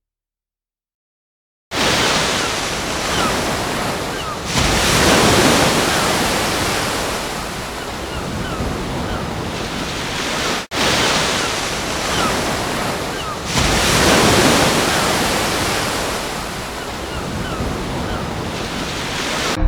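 Ocean surf: waves breaking and rushing in a steady wash, swelling louder as a new wave comes in about four and a half seconds in and again about thirteen and a half seconds in. It starts only after a second and a half of silence and cuts out for an instant about ten seconds in.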